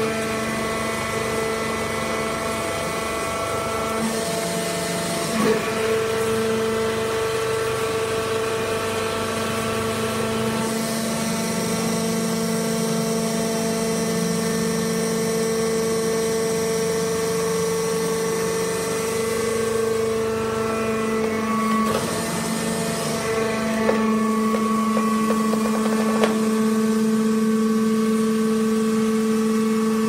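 Hydraulic sawdust and wood-shaving bagging baler running: its motor and hydraulic pump give a steady hum with a whine, the pitch shifting a little a few times as the press works. A thin high whine joins for several seconds in the middle, and there are a few short knocks.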